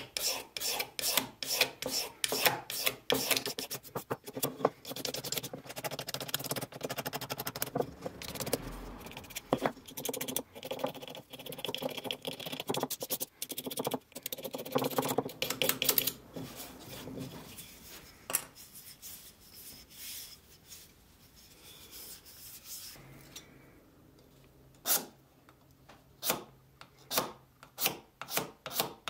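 A small pointed steel tool scraping the wooden body of an antique wooden hand plane, in quick short strokes, a few a second. Past the middle the strokes fade to faint scratches for several seconds, then come back as sharp separate scrapes near the end.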